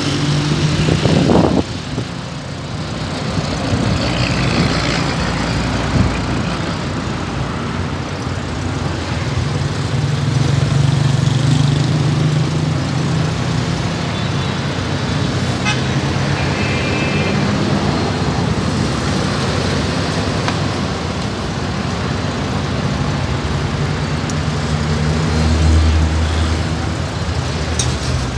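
Street traffic noise: car engines running and vehicles passing, as a steady roadside din.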